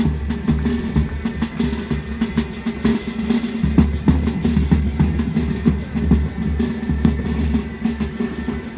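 Military band playing, with held wind tones over a steady beat of bass and snare drums.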